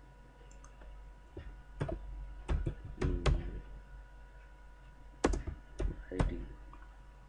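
Typing on a computer keyboard: about nine separate keystrokes in two short groups, one in the first half and one near the end, over a faint steady hum.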